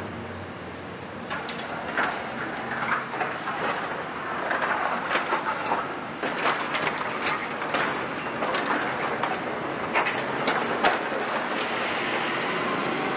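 A Caterpillar 340 Next Gen long-front demolition excavator tearing into a hall's steel frame: irregular metal clanks, knocks and scraping over the machine's steady running, busiest in the middle.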